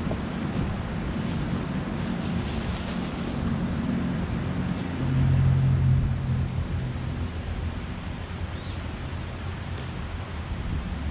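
Low, steady rumble of traffic on the road bridge overhead, swelling louder for a moment about five seconds in.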